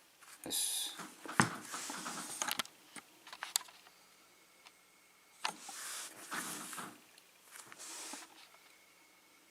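Handling noises from a just-picked padlock and its picking tools: scattered light metallic clicks and short rustles, busiest at the start and again midway, with quiet gaps between.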